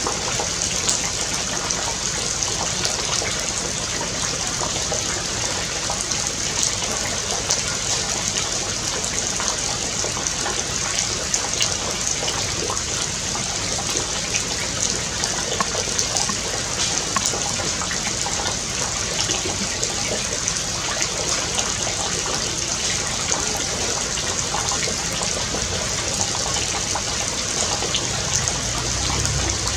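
Steady rushing hiss of flowing water.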